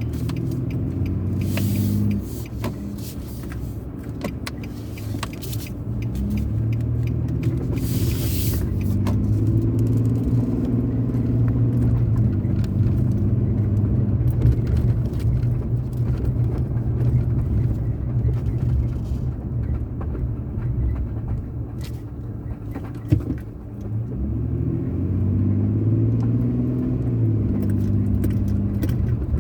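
Car engine and road noise while driving, the engine's pitch rising and levelling off twice as the car speeds up, about a quarter of the way in and again near the end.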